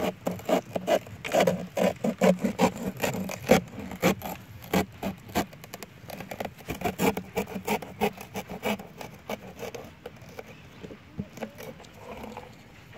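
Serrated sickle cutting into a soft banana trunk, a quick run of scraping, rasping strokes that thins out near the end.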